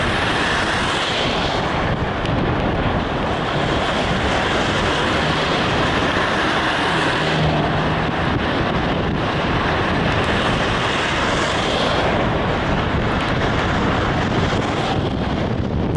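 Steady, loud rush of wind and road noise from a moving vehicle.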